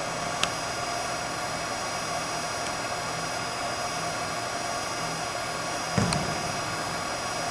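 A football kicked off the turf: one sharp thud of the foot striking the ball about six seconds in, with a short echo, over a steady background hiss and hum.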